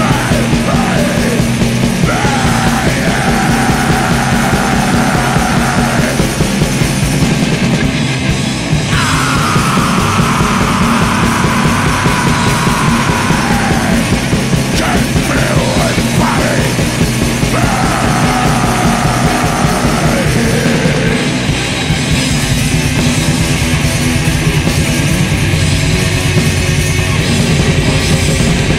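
Black metal band playing: dense guitars and drums with harsh yelled vocals. The vocals stop about two-thirds of the way through, leaving the band playing on alone.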